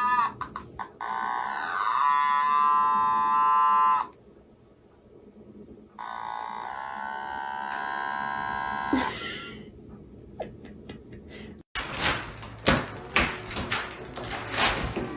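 An Otamatone playing buzzy electronic notes with sliding pitch, in two phrases with a short pause between. After a cut near the end, crinkling, rustling paper and flapping wings as an owl thrashes about on it.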